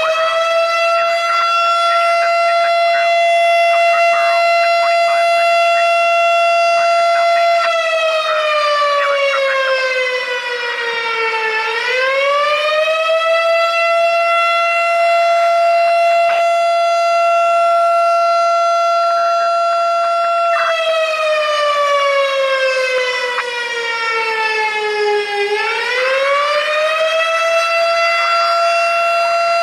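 Federal Signal Thunderbolt STH-10 air raid siren sounding a fire call-out: one steady, loud tone that holds for about eight seconds, winds down in pitch over a few seconds, then winds back up to the same tone. The dip and climb happen twice.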